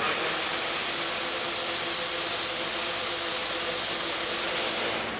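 Robotic arc welding of a steel pallet rack load beam to its end clip: the welding arc strikes abruptly and runs as a steady, loud hiss, then stops about five seconds in as the weld ends.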